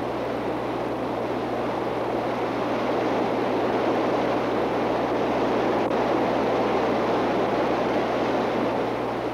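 Fast stream water rushing through rapids: a steady noise that swells toward the middle and eases off near the end.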